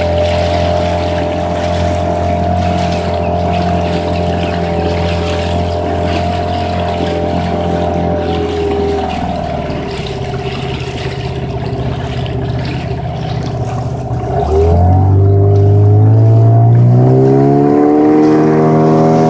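Coaching launch's motor running steadily at low speed. About two thirds of the way in the throttle is opened: it gets louder and its pitch climbs over a few seconds, then holds at the higher speed.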